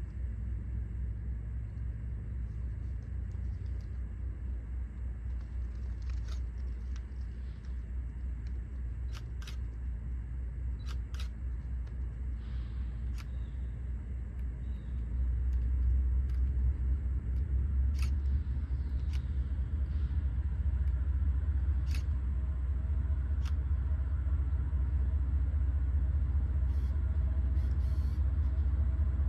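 Low, steady rumble of a freight train's diesel locomotives approaching from a distance, stepping up in loudness about halfway through, with a few faint clicks.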